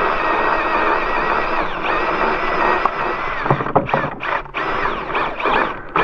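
Power drill spinning a hand winch, reeling in cable to pull a heavy log up ramps onto a sawmill. The motor runs with a steady whine that dips briefly about two seconds in, then from about halfway breaks into short, uneven bursts.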